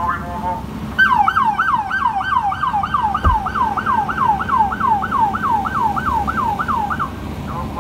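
Police car's electronic siren in a fast yelp: a quick falling wail repeated about four times a second. It starts about a second in and stops near the end.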